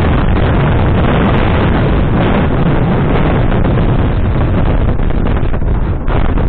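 Loud, steady wind noise on the camera microphone: gusts buffeting it with a deep, continuous rush that masks everything else.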